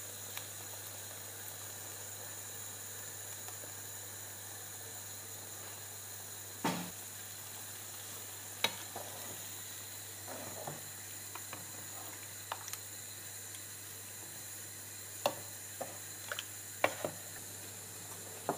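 Chicken curry simmering in a pan with a faint, steady sizzle. From about six seconds in, a spoon stirring the curry knocks and scrapes against the pan in a dozen or so short, sharp clicks.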